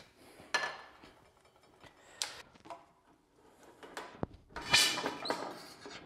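Bench-mounted hand-lever metal shear cutting a piece of sheet metal, the loudest sound, a short noisy cut a little under five seconds in. Before it, a few sharp knocks and clinks of metal being handled.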